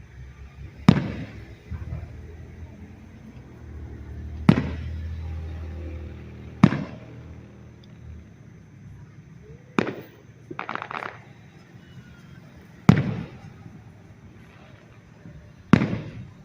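Aerial firework shells bursting in a display: six sharp booms a few seconds apart, each trailing off in an echo, with a short crackle in the middle and a low rumble between the bursts.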